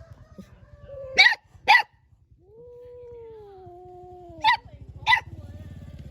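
A dog barking in two pairs of sharp barks, each pair about half a second apart and the pairs about three seconds apart. Between the pairs comes a long wavering, falling call, over a low pulsing rumble.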